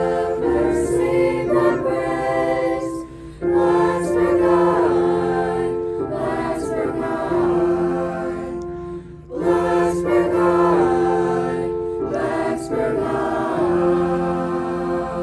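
Choir singing in harmony in long held phrases, with brief breaks between phrases about three seconds in and again about nine seconds in.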